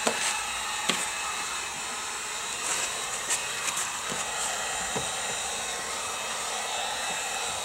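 Electric heat gun blowing steadily as it heats window tint film along the bottom edge of the glass, so that no bubbles pop up. A few light clicks sound over it.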